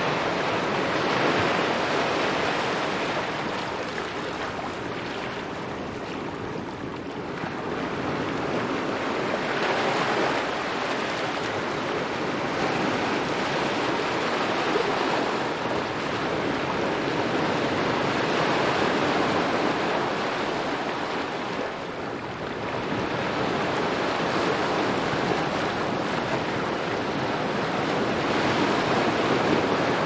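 Ocean waves and surf: a continuous rush of water that swells and eases in slow, uneven surges every few seconds.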